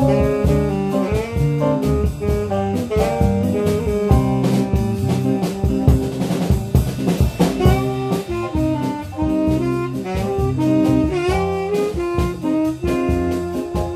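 Live jazz combo playing a bossa nova: upright double bass walking a low line under a piano-keyboard part and a drum-kit groove, with a pitched lead melody on top.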